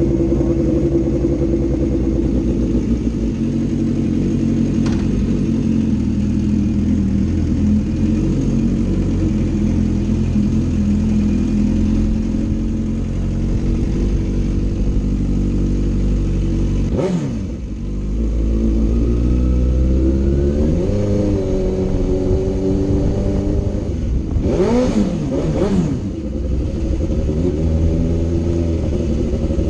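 2005 Suzuki GSX-R750's inline-four engine running on the move at fairly steady revs. About halfway through the pitch briefly drops and sweeps back up, and near the end the revs rise and fall quickly a few times.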